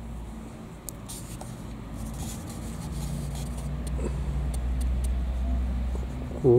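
Domestic rooster held close to the microphone, making a low murmur that grows steadily louder, then breaking into a loud call right at the end.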